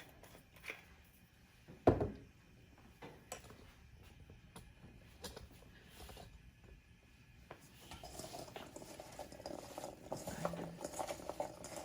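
Cut carrots being tossed in a bowl with oil and seasoning: one sharp knock about two seconds in, scattered clicks, then a steady rattling clatter from about eight seconds on.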